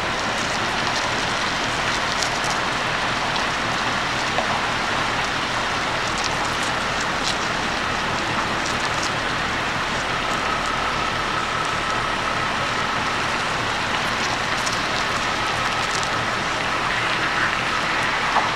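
Steady rain falling, an even hiss with scattered small ticks, over a heavy-haulage truck's engine running in the background. A faint steady high tone comes in about halfway through.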